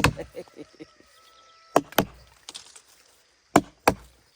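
Axe chopping dry jackfruit-tree wood: five sharp blows, one at the start, then two quick pairs.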